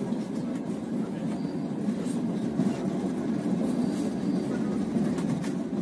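Passenger train running, heard from inside the carriage: a steady rumble of the wheels on the rails, with a few faint clicks.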